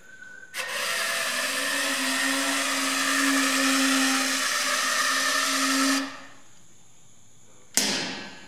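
Electric drive motors of a small wall-climbing robot running as it drives its wheels up a steel sheet: a steady whine over a hiss, starting about half a second in and stopping abruptly about six seconds in. A single sharp knock follows near the end.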